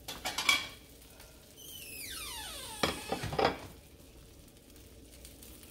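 A ceramic plate and a wooden spatula being handled and set down, giving a few clinks, then a tone sliding down in pitch and two louder knocks about three seconds in. Underneath, the sandwich fries in the skillet with a quiet steady sizzle.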